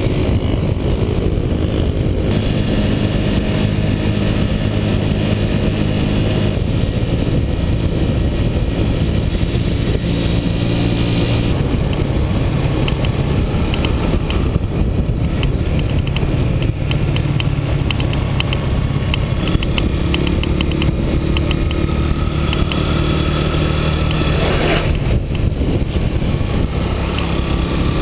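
Motorbike engine running at road speed under a dense low rumble of wind and road noise. The engine note shifts in pitch a few times as the speed changes.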